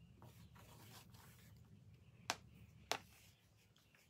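Quiet handling of denim and sewing tools on a cutting mat: two short, sharp clicks a little over half a second apart, over a faint low room hum.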